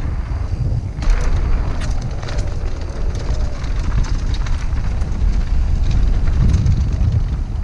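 Wind rumbling on a helmet-mounted camera's microphone during a fast mountain-bike descent, with tyres rolling over dirt and rock and the bike rattling in scattered sharp clicks.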